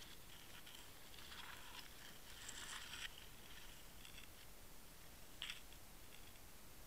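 Faint, muffled scratching and rustling picked up inside an underwater camera housing as it is drawn through water weeds, with one sharp click about five and a half seconds in, over a steady faint hiss.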